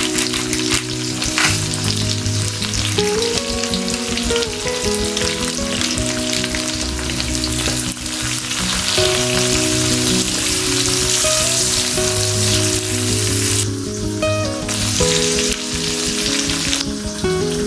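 Food sizzling and frying in a hot pan, with short breaks in the sizzle twice, over background music.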